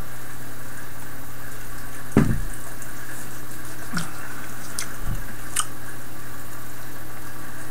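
Steady background hiss with a low hum. About two seconds in there is a single low swallow of stout, followed by a few soft mouth clicks and lip smacks as the beer is tasted.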